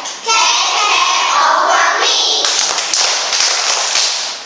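A group of young children singing a rhyme in unison, then clapping their hands in a quick run of claps for the last couple of seconds.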